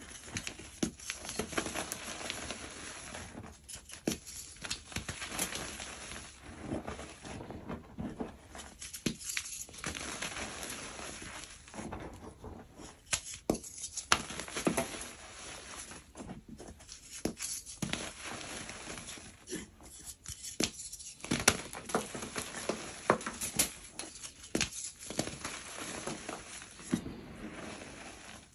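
Thick blocks of powdery gym chalk crushed and crumbled by hand: an irregular run of soft crunches and sharp snaps, with loose powder sifting and pattering down.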